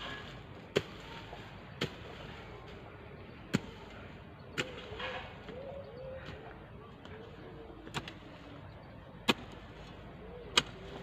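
Long-handled digging hoe striking and dragging loose soil and rubbish, seven sharp chops spaced one to two seconds apart, the last two the loudest, as earth is pulled across to level the ground.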